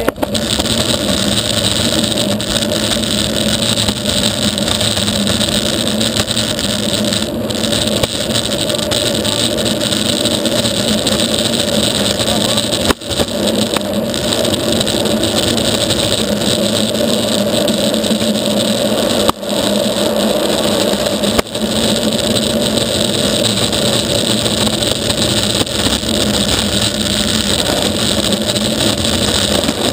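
Longboard wheels rolling fast over rough asphalt, heard close to the wheels: a loud, steady roar. It breaks off briefly three times.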